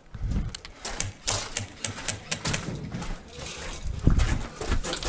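Hurried footsteps on gravel with irregular clicks and knocks of carried airsoft gear as the wearer moves quickly.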